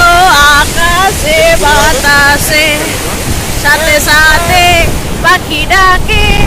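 Strong wind buffeting the microphone over breaking sea surf, with a high-pitched voice in short phrases over the top.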